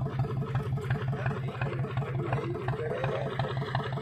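Boat engine idling with a steady, even chug.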